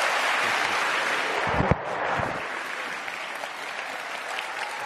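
Audience applauding steadily. A low thump comes about one and a half seconds in, and after it the applause is a little quieter.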